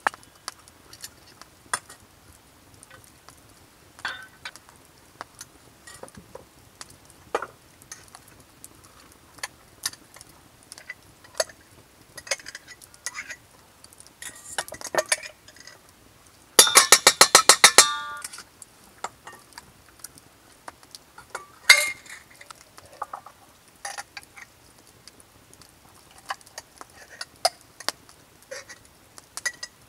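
A metal spoon clinking and scraping against a glass mason jar and a metal pot as preserved food is spooned out of the jar, with scattered light clinks of glass and metal. A little past halfway comes a rapid rattling scrape lasting about a second and a half.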